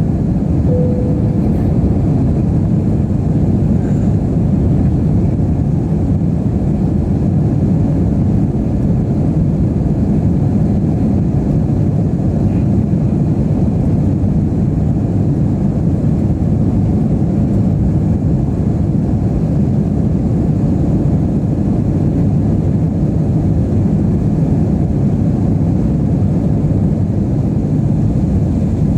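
Steady low rumble inside the cabin of an Airbus A320-232, made by its IAE V2500 jet engines and the rushing air around the fuselage, with no change in level.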